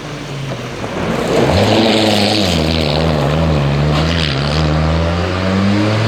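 Rally car engine coming in about a second and a half in, its note dipping and wavering, then climbing steadily near the end as the car accelerates.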